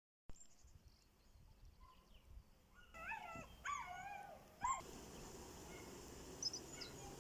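A few short animal calls that bend up and down in pitch, bunched together about halfway through, over a faint outdoor background.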